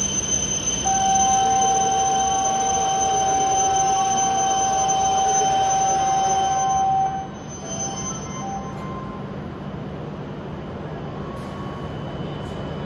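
Station platform door warning buzzer: one steady high beep held about six seconds while the platform screen doors close, cutting off suddenly, over a steady low hum.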